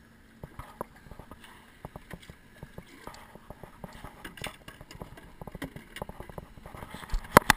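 Plastic buckets being handled in an aluminium boat: scattered light knocks and clatter, then a few loud sharp snaps near the end as a lid is pressed onto a white plastic bucket.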